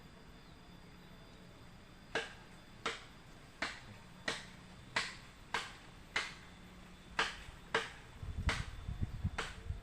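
A series of about eleven sharp clicks, roughly one every two-thirds of a second, with low rumbling handling noise joining near the end.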